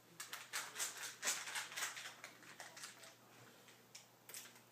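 A stick packet of supplement powder being torn open and crinkled in the hands: a run of dry, rustling crackles that thins out, with another short burst near the end.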